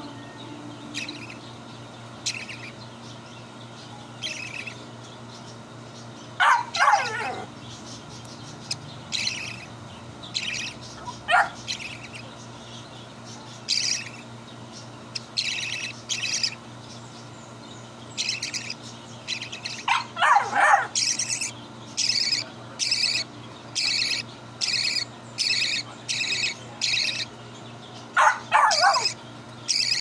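Baby budgerigar chirping repeatedly while being hand-fed from a syringe: short high begging chirps, sparse at first and then about one a second in the second half. A few louder, longer calls falling steeply in pitch stand out, about a quarter, two-thirds and near the end.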